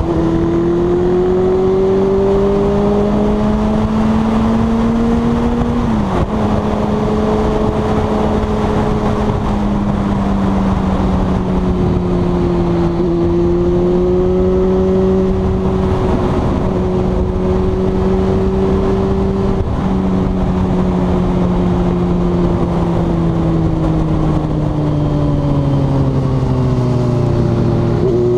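Yamaha FZ6's 600 cc inline-four engine under way, with wind rushing over the microphone. The engine's pitch climbs for the first six seconds, drops sharply with an upshift, holds fairly steady, then eases down slowly through the later part, jumping back up right at the end.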